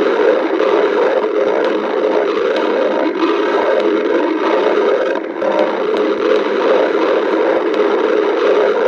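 Stomach growling: a loud, continuous rumbling gurgle with a brief dip about five seconds in.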